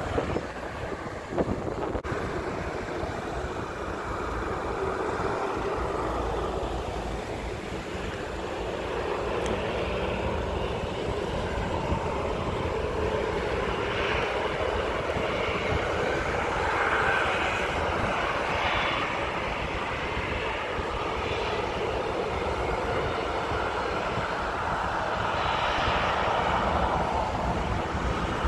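Distant jet engines of a Boeing 737 airliner on the runway, a steady rushing whine that swells a little around the middle and again near the end. Wind rumbles on the microphone throughout.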